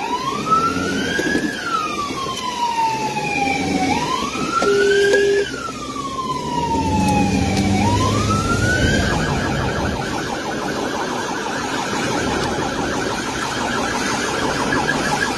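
Police car siren sounding in wail mode: slow rising-and-falling sweeps, each about four seconds long. About nine seconds in it switches to the fast yelp warble, with the car's engine and road noise underneath, heard from inside the cabin.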